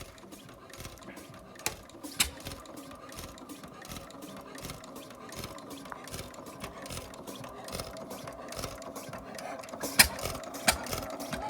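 1912 Gardner 1AF single-cylinder stationary engine running, a steady rhythmic mechanical clatter. A few sharper clicks stand out, two near the start and two near the end.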